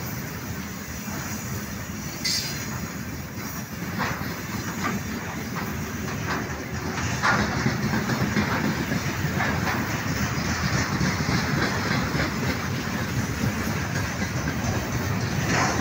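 Freight train of tank cars rolling past at close range: a steady rumble of wheels on the rails with scattered sharp knocks, getting louder about seven seconds in.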